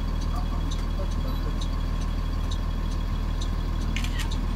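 Bus engine idling with a steady low hum, heard from inside the bus, with a few faint clicks.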